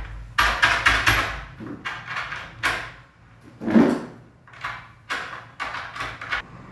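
Lever handle and latch of a wooden door's handle lock being worked over and over: a run of short metallic clicks and clacks, with a heavier knock about four seconds in.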